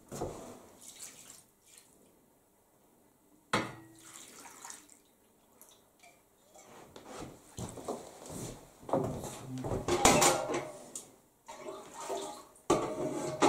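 Water poured from a mug onto metal baking trays of minnows, in several splashing pours with clinks of metal, loudest past the middle. One sharp knock comes about a third of the way in.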